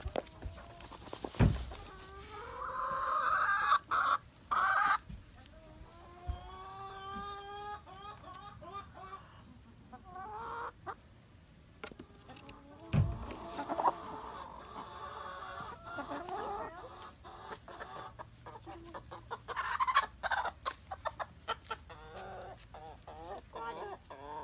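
Production Red hens clucking and giving long, drawn-out calls that rise in pitch, among scattered sharp clicks and scratches. Two dull thumps come about a second and a half in and again near the middle.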